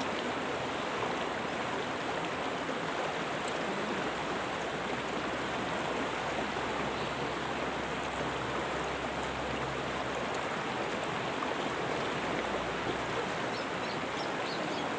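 Steady rush of river water flowing.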